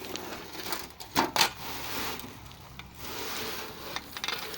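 Scraping and knocking from hand work on cement and gravel, with two sharp knocks close together about a second in.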